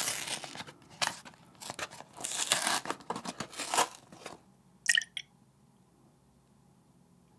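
A paperboard Coolpis drink carton being prised open at its spout by hand: crinkling and tearing of the waxed paper for about four seconds, then a short sharp snap about five seconds in.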